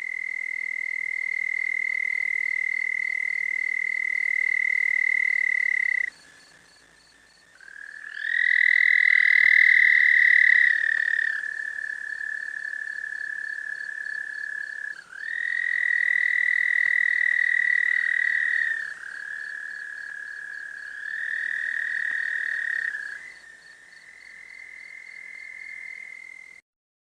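Frogs trilling: long, steady trills of several seconds each at one pitch, with two or three overlapping at slightly different pitches. Each trill starts and stops abruptly, and the loudest stretch comes about nine to eleven seconds in.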